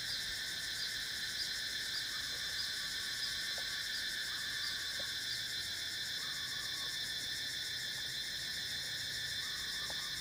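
Steady chorus of insects, a shrill drone of several high pitches held without a break.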